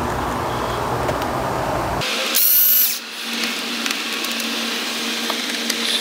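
Cordless drill-driver spinning briefly with a high motor whine, about half a second long a little over two seconds in, backing out a Phillips screw from the dash trim.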